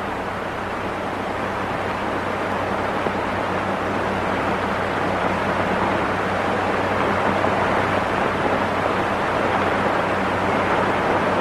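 Steady hiss with a faint low hum from a worn old film soundtrack, growing slowly louder.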